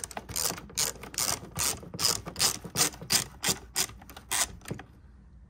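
Hand ratchet on a long extension clicking in a steady run of strokes, about three or four clicks a second, as it loosens a worm-drive hose clamp on the engine's intake tube. The clicking stops near the end.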